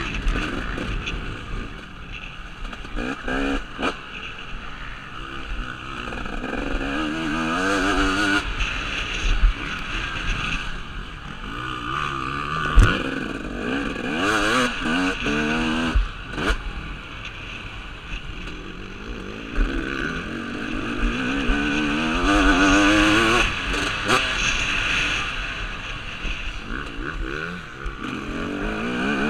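2017 KTM 250 SX two-stroke motocross bike's engine under hard riding, revving up in rising sweeps and dropping back again and again as the rider opens and closes the throttle and shifts. A few sharp knocks cut through, the loudest a little under halfway.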